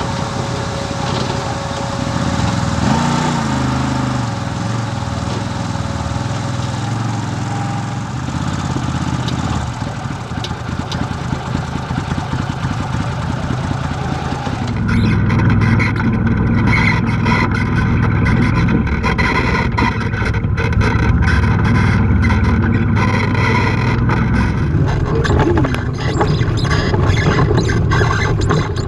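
Side-by-side UTV engine running while driving on dirt trails, the pitch rising and falling with the throttle. About halfway through, the sound shifts to a louder, rougher stretch full of short clicks and knocks.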